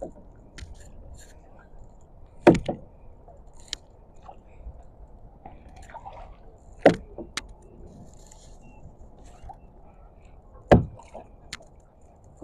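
Kayak paddling: the aluminium paddle shaft knocks sharply on the plastic sit-on-top kayak about every four seconds, three loud knocks each followed by a lighter one, over a low steady wash of water.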